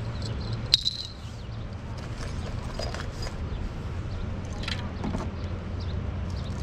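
Wind rumbling on the microphone, with scattered short high chirps and a single sharp click about a second in.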